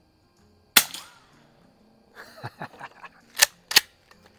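Savage Model 29A pump-action .22 rifle firing one low-velocity 'quiet' .22 round about a second in: a single sharp crack. Then a run of clicks and two sharp clacks near the end as the pump action is worked.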